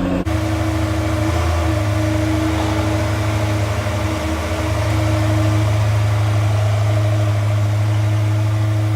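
Car engine idling steadily, its note shifting slightly a couple of times.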